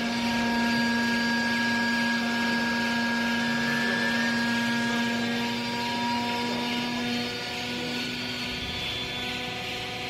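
Hydraulic power unit of a vertical baler, electric motor and pump, running under load as the ram presses used clothing down: a steady whine over a broad hiss. The strongest part of the whine fades about seven seconds in.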